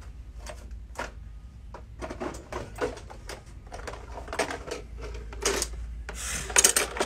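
Hand tools and small objects being rummaged through and handled, giving scattered clicks, knocks and rubbing, with the loudest clatter near the end.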